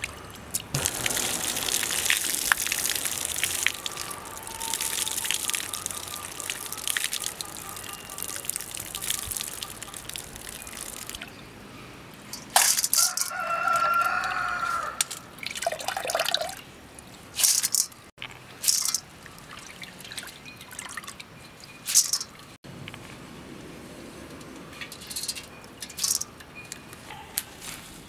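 Hands swishing and rubbing red rice in water in a steel pot, the water splashing and trickling, for about the first ten seconds. A rooster crows about halfway through, and the rest holds scattered short clinks and knocks.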